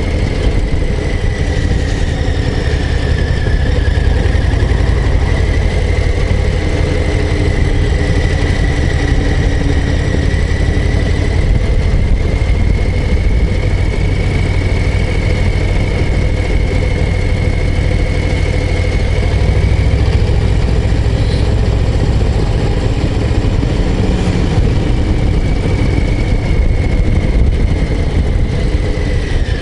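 Harley-Davidson Low Rider ST's Milwaukee-Eight 117 V-twin engine running steadily as the bike rides along, heard from on the motorcycle. A steady high whine wavers slightly in pitch over the engine note.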